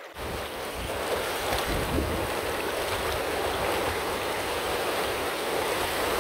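Small waves breaking and washing through shallow water at the shoreline, a steady rush of surf, with wind buffeting the microphone.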